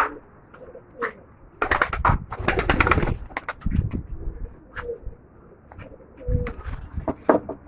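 Domestic pigeons cooing, with a loud burst of rapid rattling that lasts about a second and a half, starting about one and a half seconds in.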